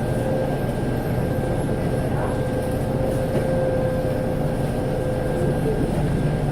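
Scania L94UB city bus running: a steady low engine and road rumble with a whine on top that fades away about five seconds in.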